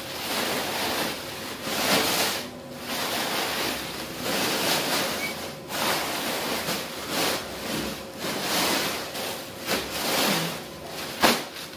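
Thin plastic carrier bag being handled, rustling and crinkling unevenly, with a few sharper crackles.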